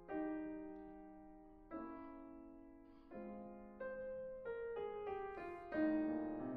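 Slow, gentle solo piano music: notes and chords struck every second or so, each left to ring and fade.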